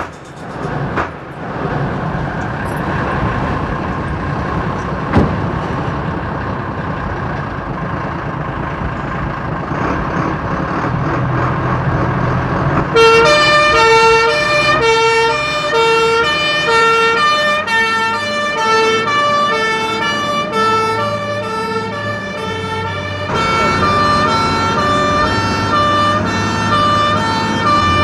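A Leyland Carmichael fire engine's engine running, then, about halfway through, its two-tone siren starts, switching back and forth between a high and a low note, each lasting under half a second.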